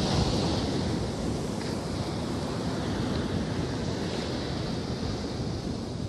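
Steady wind noise on a phone's microphone over the wash of sea surf on a sandy beach.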